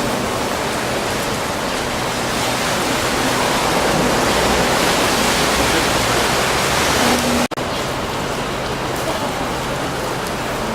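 Steady rushing of water and wind with a faint low engine hum, as when a wakeboard run is filmed over the water behind a tow boat. The sound drops out for an instant about seven and a half seconds in, then carries on with the hum lower in pitch.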